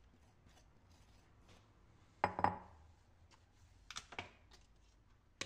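Light clinks and knocks of kitchen utensils against a bowl and metal baking tray while melted chocolate is poured and spread: a pair of knocks about two seconds in, a few more around four seconds, and one sharp click near the end.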